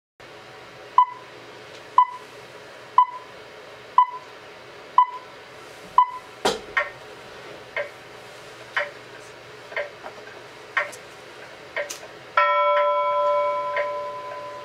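A clock ticking once a second, each tick with a short metallic ring. About six seconds in there is a louder click and the ticks turn uneven. Near the end a single bell-like tone rings out and fades over about two seconds.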